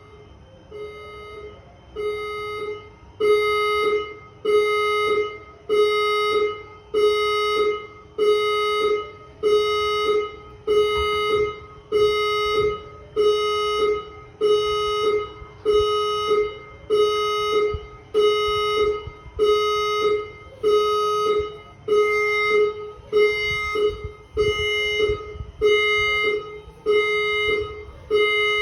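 A loud electronic alarm sounding in repeated blasts, about four every five seconds, each a chord of several fixed tones. It builds up over the first three seconds, with a fainter rising whoop repeating behind it.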